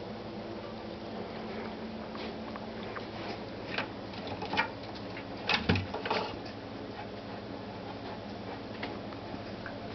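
Leonberger puppy hiccupping: short, sharp hiccups at uneven intervals, loudest in a cluster about halfway through.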